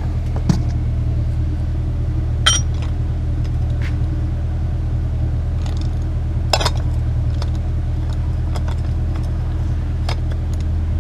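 Four sharp metallic clicks of a wrench on the oil filter of a Yamaha 25 hp four-stroke outboard being tightened, over a steady low engine-like rumble.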